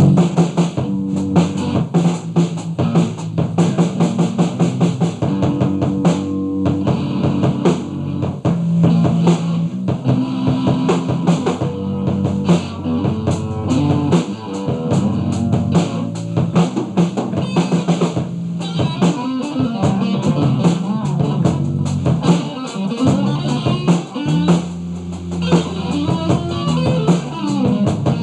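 Background music: an instrumental rock track with a steady drum-kit beat, bass and guitar.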